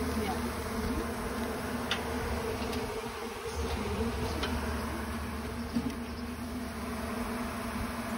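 Honey bees buzzing in a steady, continuous hum. The workers are fanning their wings at the frame to call in the rest of the colony.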